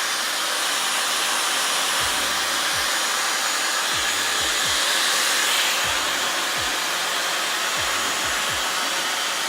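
Dyson hair dryer running steadily, blowing with an even, airy hiss.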